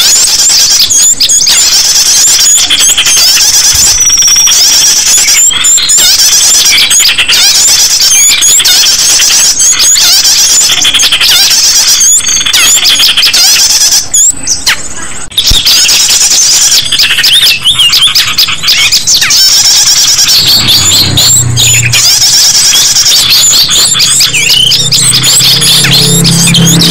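Bird-lure recording of many small birds calling shrilly at once, rapid high chirps overlapping densely without a break. From about twenty seconds in, a low steady hum joins underneath.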